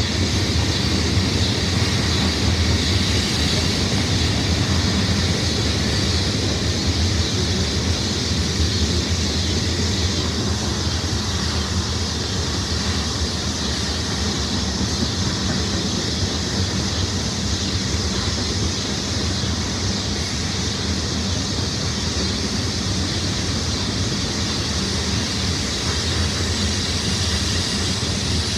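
Coal train's freight cars rolling past on the track: a steady rumble of steel wheels on rail.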